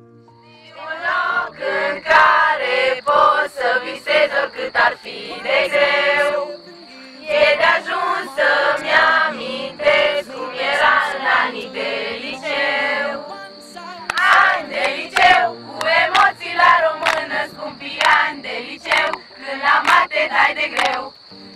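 A group of young people singing together, a mix of mostly female voices, with a short pause midway. A steady high whine and frequent sharp clicks run under the singing.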